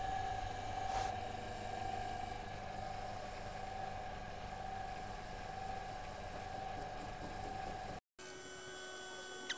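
Sealey SM27 metal lathe running: a steady motor whine over a low hum while a turning cut is taken. Near the end the sound drops out for a moment and returns as a different steady whine with a higher tone in it.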